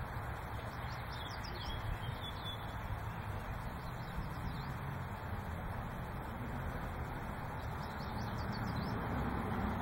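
Outdoor ambience: a few short bird chirps scattered through, over a steady low background rumble and hiss.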